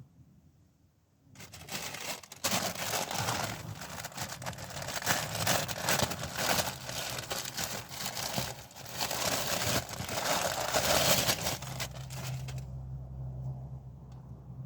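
Close, dense crinkling and crumpling, like paper or food wrapping being handled, starting a little over a second in and stopping near the end, after which only a faint low hum is left.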